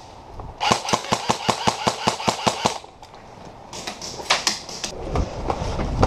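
Airsoft rifle firing a full-auto burst of about twenty rapid shots, roughly ten a second, then a few more shots about a second later. Low thumps follow near the end.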